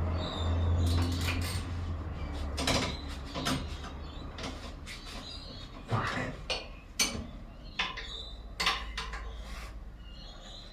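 Scattered metallic clinks and knocks of tools and engine parts while a serpentine belt is worked around the pulleys and tensioner. A low steady hum fades out about two seconds in.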